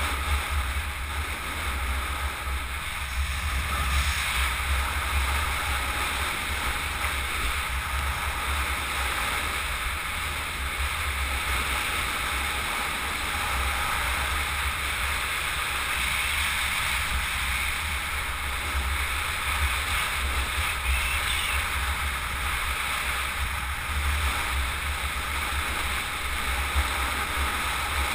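Steady rush of wind buffeting a helmet-mounted camera's microphone at downhill speed, with a heavy low rumble.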